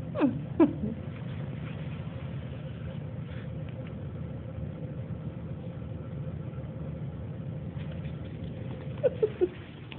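A steady low hum throughout, with two sharp squeaks falling steeply in pitch right at the start and three short, quick squeaks about nine seconds in.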